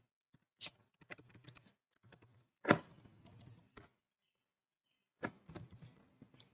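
Typing on a computer keyboard: faint keystroke clicks in short, scattered runs, the loudest a little under three seconds in.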